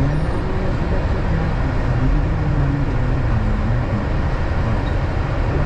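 Steady low engine and road rumble of a vehicle heard from inside its cabin, with no sudden events.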